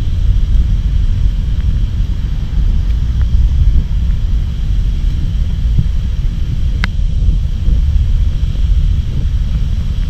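Steady low rumble of a large waterfall close by, its heavy spray and mist blowing across the microphone, with one brief sharp click about seven seconds in.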